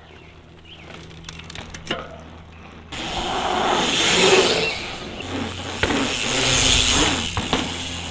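A few scattered clicks, then about three seconds in a loud, steady rush of wind and tyre noise from a mountain bike being ridden.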